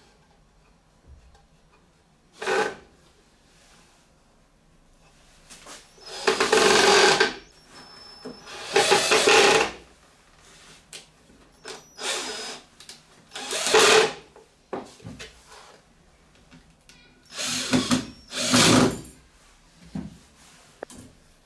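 Cordless drill/driver running in about seven short bursts, each a second or less, drilling and driving screws into plywood.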